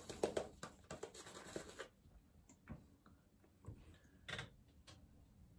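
Synthetic shaving brush working soap lather on the face: faint wet swishing and crackling strokes, busiest in the first two seconds, then scattered soft clicks with one louder one a little past four seconds.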